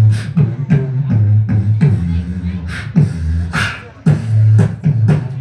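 Beatboxer layering a hummed bass line with vocal kick and snare drum sounds at the same time, amplified through PA speakers. The bass hum steps between a few low notes while the drum hits come about three a second.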